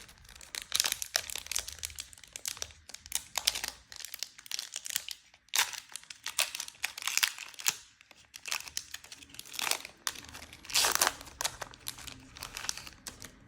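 A Magic: The Gathering collector booster pack's foil wrapper being torn open and crinkled by hand: irregular crackling and rustling, with louder spells of crinkling.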